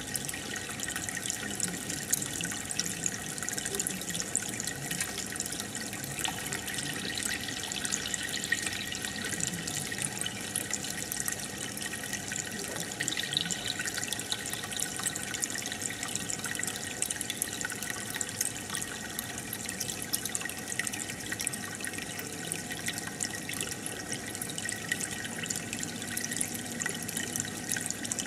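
Aquarium water bubbling and running steadily from an air stone and filter, with a fine crackle of small bubbles bursting.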